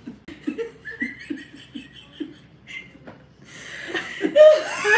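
A woman and a man laughing hard, in short breathy bursts about three a second. The laughter grows louder about three and a half seconds in.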